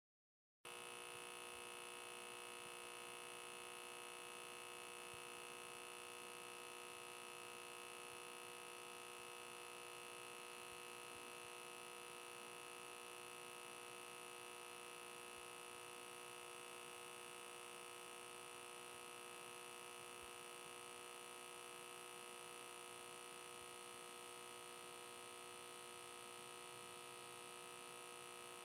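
Fluorescent light humming and buzzing steadily: an unchanging electrical buzz of several fixed tones with a high whine over it. It starts abruptly about half a second in.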